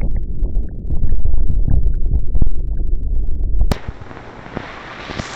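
Loud low rumbling with a few dull thumps, then, after a sudden cut about three and a half seconds in, a steady hiss of rain falling.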